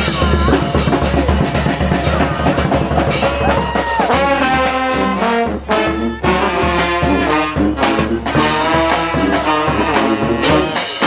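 Brass street band playing live, with trumpets and trombones over bass drum and snare. One horn bends a note up and back down about four seconds in.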